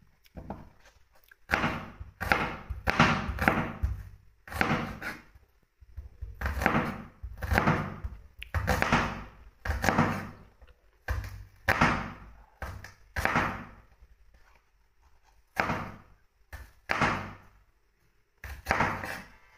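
A long run of heavy thuds or knocks, roughly two a second, coming in bunches with short pauses between.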